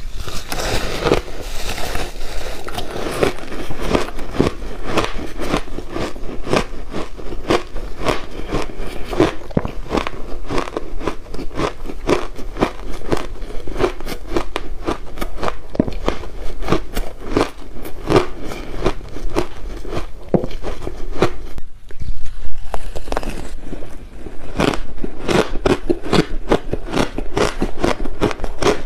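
Close-miked biting and chewing of hard frozen ice mixed with passion fruit: a dense, continuous run of sharp crunches and crackles. After a cut about three-quarters of the way through, the crunching of another frozen block carries on.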